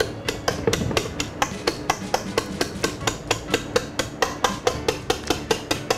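A utensil knocking rapidly and evenly against a mixing bowl, about four knocks a second, each with a short ring, as soft yam mash is knocked out of the bowl.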